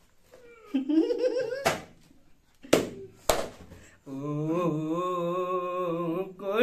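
A man's voice rising briefly, three sharp smacks, then a steady held hum of about two seconds that stops abruptly near the end.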